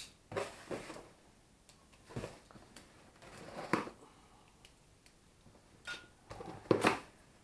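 A taped cardboard parcel being handled and shifted across a worktop: several short scrapes and rustles of cardboard, the loudest near the end.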